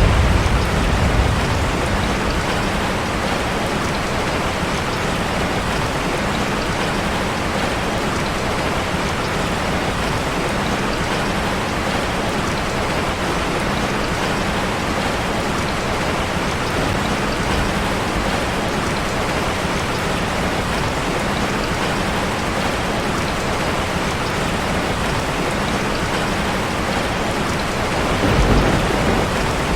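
Steady, even rain falling on a street. A low rumble swells in the first second and again near the end.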